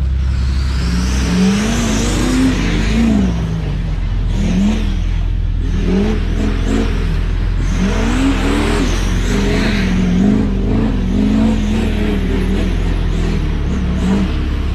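Ford F450's turbo-diesel engine revving up and down again and again as the truck drives around, its pitch rising and falling every second or two, with a noisy rush above it.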